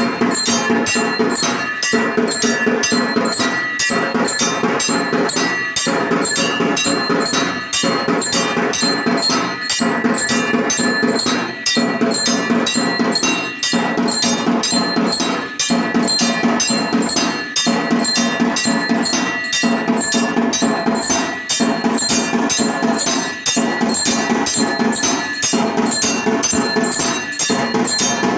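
Automatic temple bell and drum machine playing: rapid drum strokes over continuous ringing bells, in a pattern that repeats about every two seconds.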